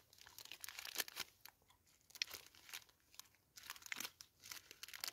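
Crunching of a Tunnock's Caramel Log wafer bar being chewed, with its wrapper crinkling in the hands: irregular crisp clicks and rustles.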